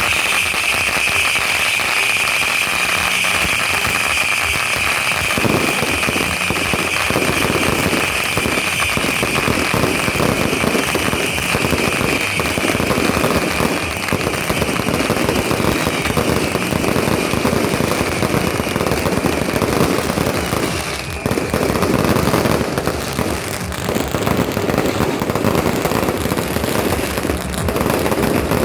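Long strings of firecrackers going off in dense, continuous crackling for a ceremonial salute, with a steady high whistle over the first half.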